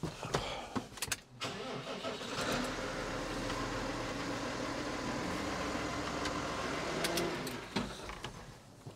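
A New Holland T7.190 tractor's six-cylinder diesel engine is started from the cab, runs at a steady idle for about five seconds, then is shut off and runs down near the end. A few clicks from the cab come just before it starts.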